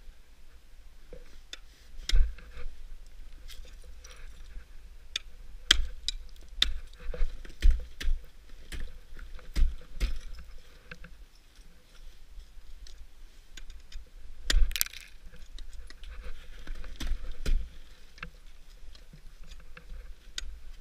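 Ice axe picks and crampon points striking brittle waterfall ice: irregular sharp knocks and cracks at a slow, uneven pace, with the loudest strikes about two seconds in and at around fifteen seconds.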